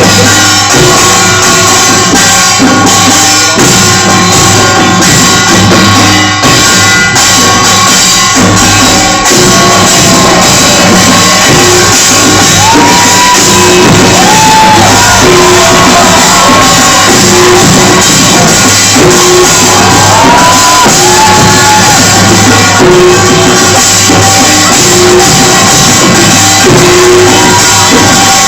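Korean pungmul percussion band playing loudly and without a break for a sangmo ribbon-hat dance, with drums and gongs. Voices shout and whoop over the playing around the middle.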